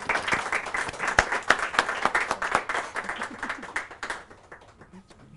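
Audience applauding; the clapping is dense at first, then thins out and dies away after about four seconds.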